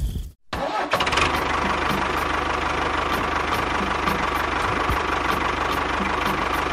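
A tractor engine running steadily with a fast, even chugging knock. It comes in about half a second in, after a brief gap.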